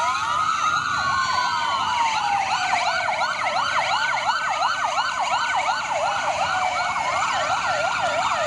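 Several emergency sirens sounding together: slow wails rising and falling, layered over a fast yelp cycling about twice a second.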